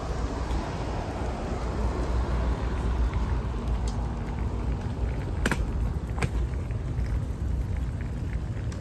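Steady low rumble of road traffic on a city street, with two sharp clicks a little past halfway.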